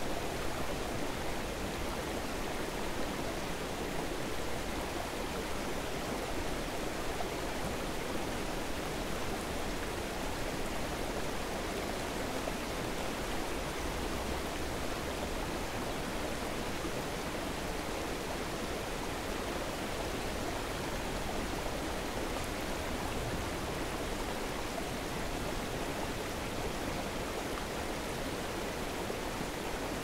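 Waterfall and stream water rushing steadily, an even hiss with no single sounds standing out.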